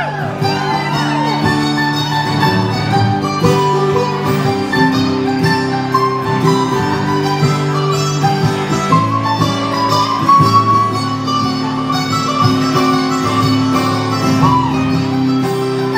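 Live acoustic guitar strumming chords while a second plucked string instrument plays a lead line with bent notes: an instrumental passage without singing.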